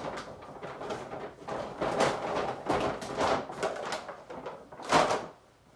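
Brown paper grocery bags rustling and crinkling as items are pulled out and handled, in a run of irregular bursts with the loudest near the end.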